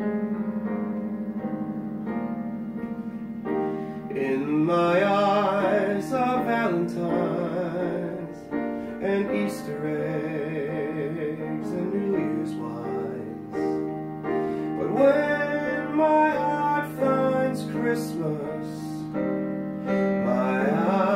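A Roland digital piano playing a slow song, with a man singing along in a voice with vibrato; the piano plays alone for about the first four seconds before the voice comes in.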